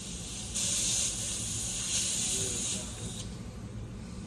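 A loud spraying hiss starts about half a second in and stops about three seconds in, over a steady low rumble.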